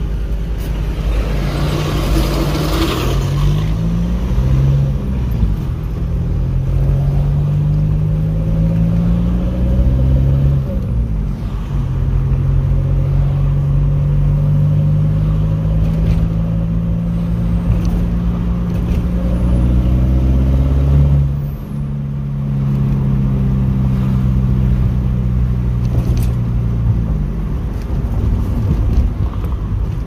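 A car's engine and road rumble, heard from inside the cabin while driving. The engine pitch climbs in several steps over the first few seconds as the car accelerates through its gears, then holds steady. About two-thirds of the way through, a heavy low rumble stops and the engine pitch dips briefly before settling again.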